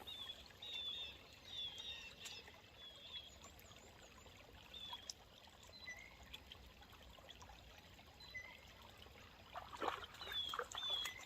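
Faint flowing river current trickling, with small birds chirping repeatedly. A few brief, louder noises come near the end.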